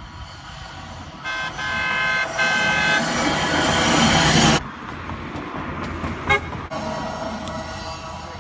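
Train horn sounding three blasts, a short one and then two longer, a chord of several steady tones, over rising train noise that cuts off abruptly. Quieter rumble follows, with a fainter horn-like tone near the end.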